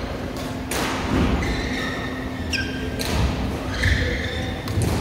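Badminton hall sounds: three sharp strikes of rackets on shuttlecocks and thuds on the court, spread out a second or two apart, ringing in the large hall.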